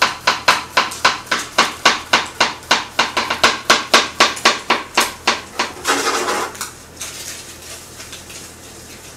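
Chef's knife chopping garlic on a cutting board: quick, even knocks about four a second for nearly six seconds, then a brief noisy rustle as the chopping stops.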